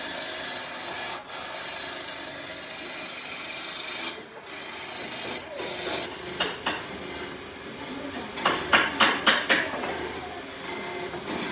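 A tool working wood with a steady rasping hiss that stops and starts, then a quick run of about half a dozen sharp knocks a little past the middle.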